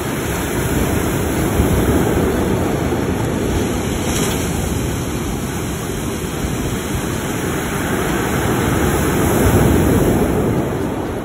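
Ocean surf breaking on a pebble beach: a steady rushing wash that swells about two seconds in and again, loudest, near the end.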